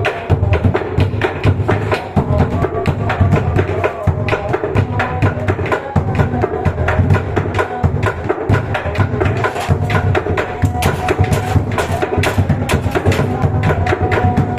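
Bedug, large Indonesian mosque drums, beaten continuously in a fast, dense rhythm: deep booming strokes mixed with sharp, rapid clacking hits.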